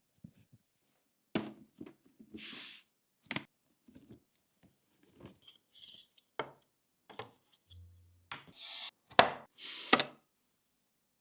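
Hands handling PC-build parts and packaging: scattered clicks, taps and knocks with a few brief rustles. The sharpest knocks come about nine and ten seconds in.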